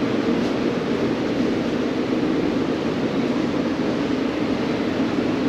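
Steady, unchanging rushing noise of ventilation fans.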